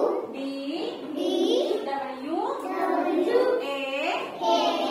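A class of young children chanting together in unison, in a sing-song way, each phrase rising in pitch and repeating about once a second.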